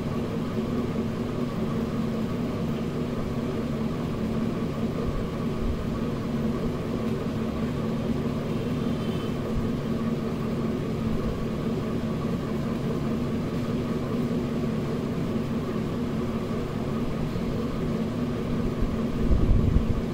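Steady mechanical hum holding several tones, with a few low thumps near the end.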